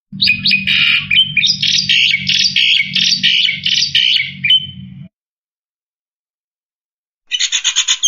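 Black-winged myna (jalak putih) singing a long run of rapid, varied notes lasting about five seconds, then after a pause a short second burst of notes near the end, with a low hum under the first run.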